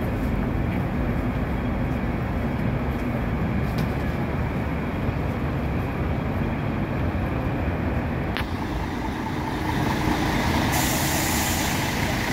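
Street traffic: buses and other vehicles running with a steady low rumble, and a loud hiss coming in near the end.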